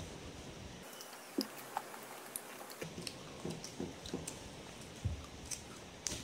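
Faint eating sounds: slices of unripe green mango being dipped in chili sauce on a glass plate and chewed, heard as a scattering of short clicks and taps.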